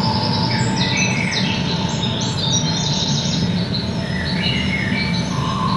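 Birdsong played through the exhibition's sound system: a run of short high chirps over a steady low hum.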